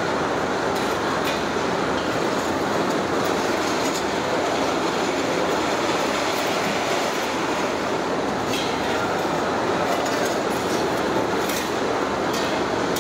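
Steady loud rushing noise, with a few light scrapes and clinks of steel shovels working burning charcoal.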